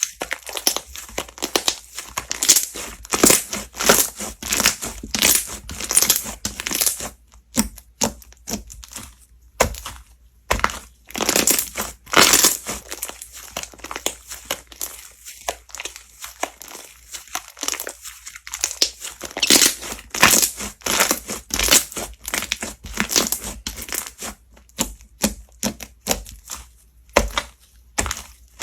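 Slime being squeezed and pressed by hand, making a dense run of sticky crackles and pops, with short pauses about seven and ten seconds in.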